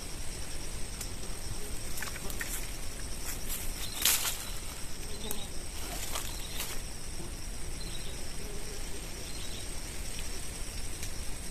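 Steady high-pitched drone of insects (crickets or cicadas) in tropical swamp forest, with a few sharp clicks and rustles from fishing tackle being handled as the line and hook are taken in hand; the loudest click comes about four seconds in.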